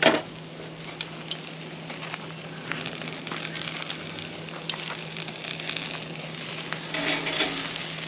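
Ribeye steak sizzling and charcoal crackling on a portable flat pack charcoal grill, a steady hiss with scattered small pops. A sharp knock comes right at the start, and about seven seconds in there is a louder metallic clatter as tongs work the steak on the steel grate.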